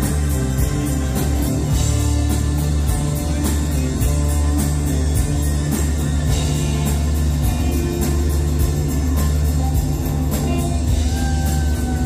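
Live rock band playing with electric guitar over a steady drum beat, the cymbal ticking about four times a second; near the end the guitar slides between notes.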